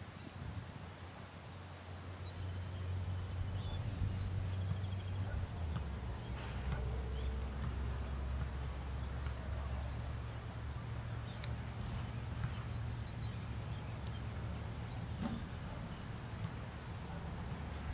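Open-air field ambience: a steady low rumble with a few scattered bird chirps and a faint, evenly repeating insect-like ticking.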